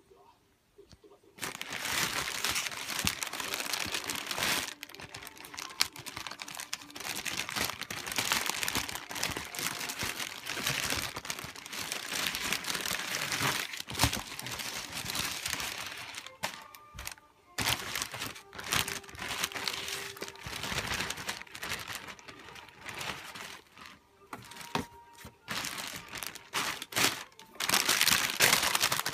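Clear plastic bag crinkling around a pair of sneakers as hands handle and unwrap them in a cardboard shoebox, with tissue paper rustling; it comes in stretches with short pauses and is loudest near the end.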